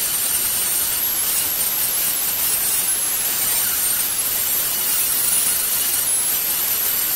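Power tools grinding metal: a small abrasive disc on a thin spindle grinds the tip of a bullet spinning in a chuck. It makes a steady grinding hiss with a high motor whine that wavers.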